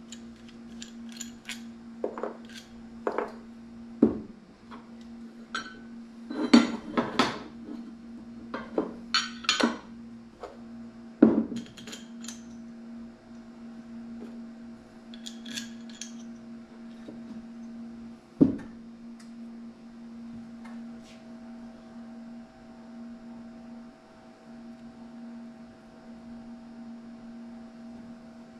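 Metal soft-plastic bait injection molds being handled and opened: a run of sharp clinks and knocks over the first twelve seconds and one more about 18 seconds in, over a steady low hum.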